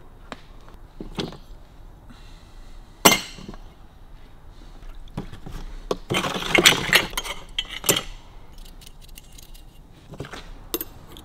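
Small steel parts and fasteners clinking as they are gathered off the workbench and dropped into a plastic tub, with a sharp clank about three seconds in and a burst of rattling clatter around six to eight seconds in.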